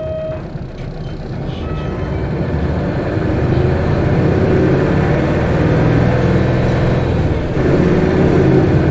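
Isuzu Erga city bus's V8 diesel engine, heard from inside the bus as it accelerates hard. The engine grows louder over the first few seconds, then holds high revs, with a brief dip about seven and a half seconds in.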